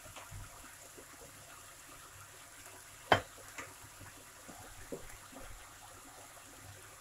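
Zucchini, mushrooms and onion frying softly in a nonstick pan, a faint steady sizzle. One sharp click comes about three seconds in, with a few faint ticks after it.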